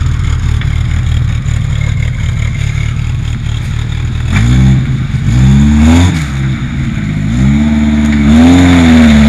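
Suzuki Samurai 4x4's engine running low and steady, then revving up and down in surges from about four seconds in, and held at high revs near the end as it climbs out of a muddy rut.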